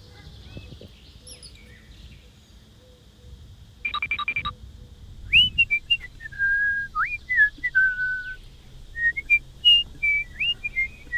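A short whistled tune of sliding and held notes, starting about five seconds in, after a brief rapid rattle a second earlier.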